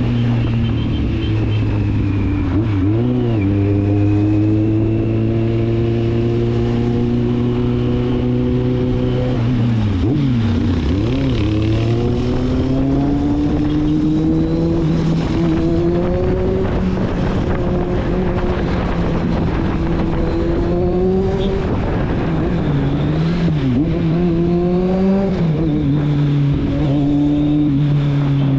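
Kawasaki Z750's inline-four engine running through its exhaust while riding. It holds steady revs, drops and recovers briefly a few seconds in and again about ten seconds in, then climbs slowly in pitch through the middle, dips, and settles back to a steady run near the end.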